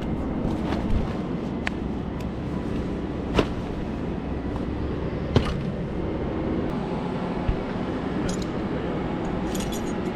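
A vehicle engine runs steadily, with a few scattered sharp metallic clinks and knocks.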